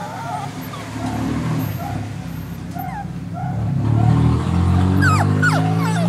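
Terrier-cross puppy whimpering and yipping in short high whines, over a steady low drone that grows louder about four seconds in.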